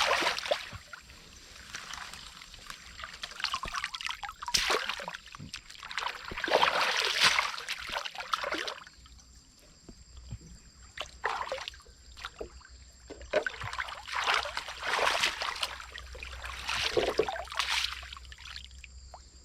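Water splashing and trickling in irregular bursts, a second or two each, with quieter gaps between.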